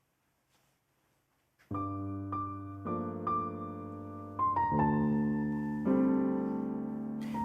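Near silence, then piano music comes in about a second and a half in: slow, gentle chords with a melody picked out above them.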